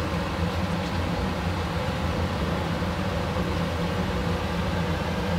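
Pieces of kid goat browning in olive oil in a stainless steel pot: a steady sizzle over a low, steady hum.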